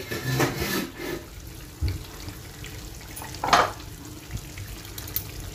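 Chicken chaap gravy simmering in an uncovered kadai: a steady soft sizzle and bubbling of oil that has separated from the masala, the sign that the chicken is cooked. A brief clatter comes about three and a half seconds in.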